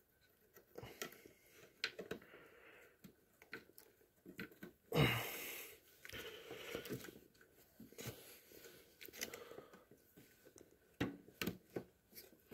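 Faint clicks and scrapes of small metal parts handled by hand as a spring and bushing are fitted onto a garden tractor's travel control linkage. One louder, brief sound falls in pitch about five seconds in.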